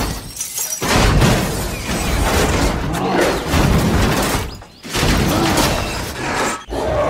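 Loud, noisy crashing and rumbling sound effects in long stretches, broken by short pauses about a second in, near five seconds and shortly before the end.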